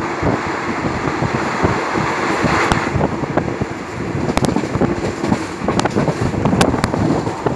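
Passenger train running at speed, heard from an open carriage window: steady rumble of wheels on the rails with scattered sharp clicks, and wind buffeting the microphone. A brighter rush of noise about two and a half seconds in, while a line of parked tank wagons is still going by close alongside.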